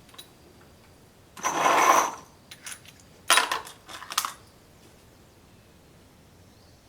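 Dutch Beaumont bolt-action rifle being loaded for a single shot: metallic clicks, a sliding rasp of the bolt about a second and a half in, then a few sharp metallic clacks as the action is closed.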